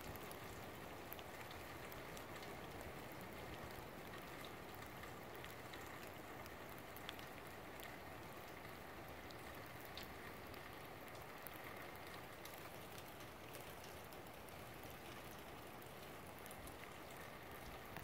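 Steady rain falling, with scattered drops ticking close by.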